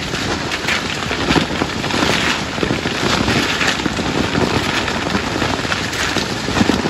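Coffee bush branches and leaves rustling and crackling densely as pickers strip ripe cherries by hand, the cherries dropping onto tarps below.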